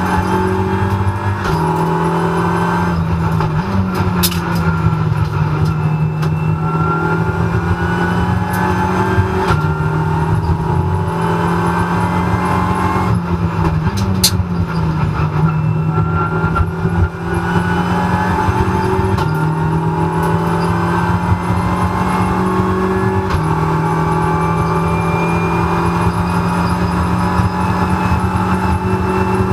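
Cabin sound of a Renault Clio Cup race car at racing speed. The engine and drivetrain whine climbs slowly through long stretches of full throttle, and the pitch steps several times with gear changes. Sharp clunks about 4 and 14 seconds in come with a jump in engine pitch that then falls away, as on a downshift under braking.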